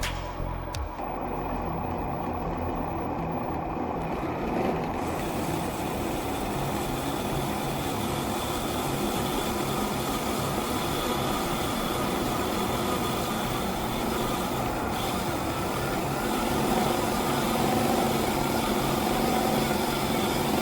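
Remote-control 8x8 truck running steadily with a continuous mechanical drone, getting slightly louder near the end. Music fades out about a second in.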